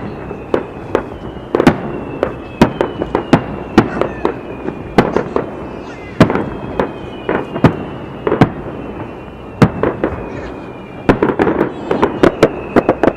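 Fireworks display: aerial shells bursting in a quick, irregular series of sharp bangs, some packed several to a second, most densely near the end. Thin high whistles glide slowly down in pitch over the bangs.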